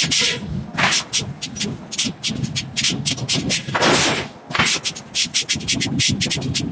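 Rapid, irregular sharp cracks and clicks around a red-hot forged iron block being handled with manipulator tongs, with a short hissing rush about four seconds in.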